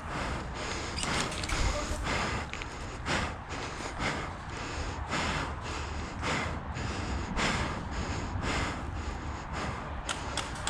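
A person breathing hard, about one breath a second, close to the microphone, over a steady low rumble.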